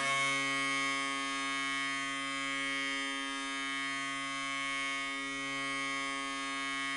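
NHL arena goal horn sounding one continuous, deep blast, rich in overtones.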